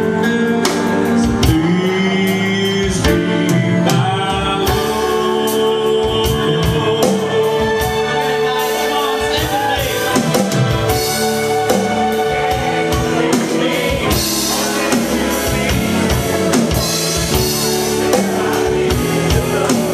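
Live band music, a drum kit beat under sustained chords.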